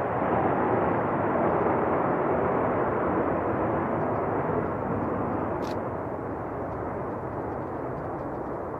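Fighter jet engine at full afterburner on takeoff: a loud, rushing roar that peaks about a second and a half in and then slowly fades away.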